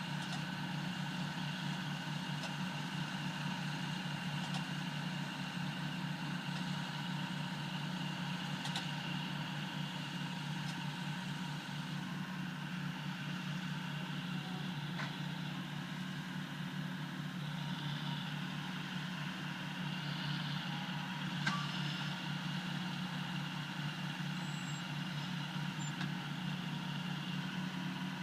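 Kubota M100X tractor's diesel engine running at a steady speed, powering a hay baler, with a few faint clicks.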